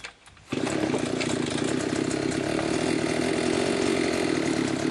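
The two-stroke engine of a Limex Expert BT 524BA petrol brushcutter catches about half a second in after a pull-start and keeps running steadily. The start comes right after the starter's broken ratchet has been replaced.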